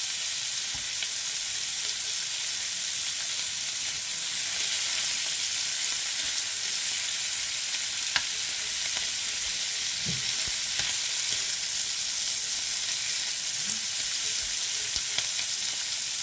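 Food frying in hot oil with a steady high sizzle, with a few light clicks like a utensil stirring in the pan.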